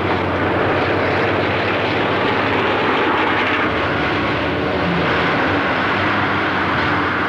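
Heavy earth-moving machinery running loudly and steadily: a face shovel working rock, then a loaded dump truck driving past, with a deeper engine note joining about four seconds in.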